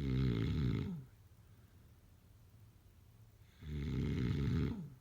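A person snoring in deep sleep. Two snores of about a second each come some four seconds apart, with quiet breathing-out between them.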